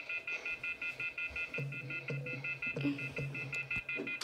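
Fast, evenly spaced electronic beeping, about seven or eight beeps a second, from a scary clip's soundtrack played through computer speakers; a low pulsing tone joins underneath about a second and a half in.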